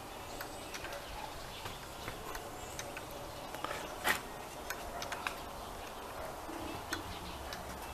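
A wooden whirligig turning, its paddler mechanism and propeller giving irregular light clicks and knocks, with one sharper click about four seconds in. Faint bird chirps in the background.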